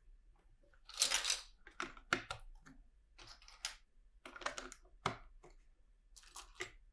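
Small plastic LEGO pieces clicking and rattling as they are handled and pressed together, in about half a dozen short clusters of sharp clicks.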